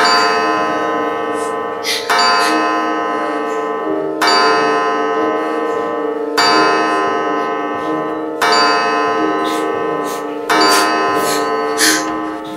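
A deep bell chime struck about every two seconds, six strokes in all, each ringing on and fading slowly until the next.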